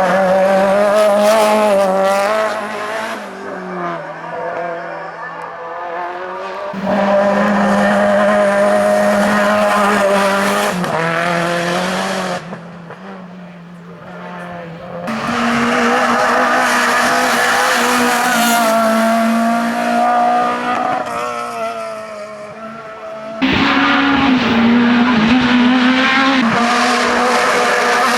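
Racing car engines at high revs, accelerating hard and shifting, in several loud passes with quieter gaps between, with some tyre squeal.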